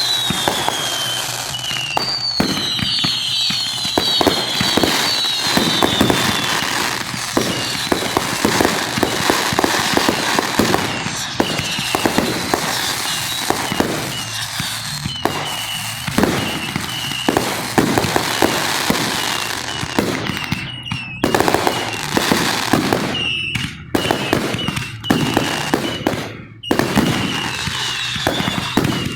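Aerial fireworks going off in a dense run of bangs over continuous crackling, with high falling whistles in the first few seconds.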